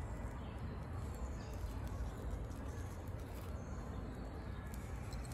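Faint crackling of a dry grass and birch-bark tinder bundle burning as it catches into open flame, over a steady low rumble.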